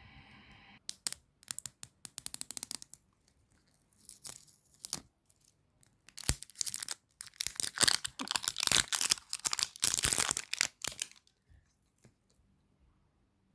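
Plastic packaging being torn open and crinkled: a quick run of small crackles, a few separate rustles, then several seconds of loud tearing and crinkling that stops near the end.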